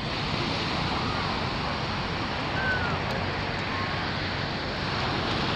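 Steady rush of surf breaking on a sandy beach, an even wash of noise with no distinct strokes.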